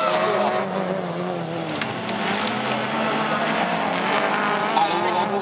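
Several racing car engines running hard on a dirt track, their pitch rising and falling as the cars accelerate and change gear.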